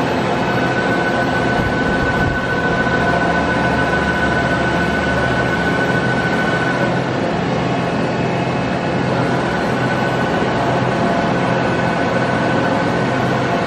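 Doosan DBC 130 CNC horizontal boring mill running: a steady mechanical hum with a high whine on top that drops out about seven seconds in and returns a couple of seconds later.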